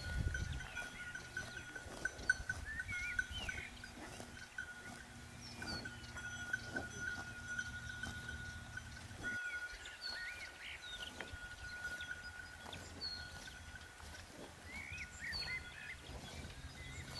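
Cowbells on grazing livestock clanking in an irregular rhythm, a steady ringing tone with repeated strikes. A low rumble underneath cuts off suddenly about nine seconds in.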